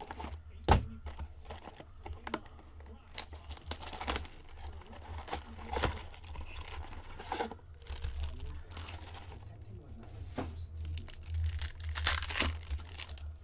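Shrink-wrapped Upper Deck Extended Series hockey card blaster box being slit and torn open: plastic wrap crinkling, cardboard tearing and irregular handling clicks and scrapes. The card pack inside is then handled and torn open, with the loudest rips near the end.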